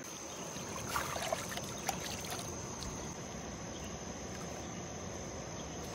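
Gentle water sloshing and a few faint drips as a gar is rinsed in shallow river water at the bank, over a steady high chirring of crickets.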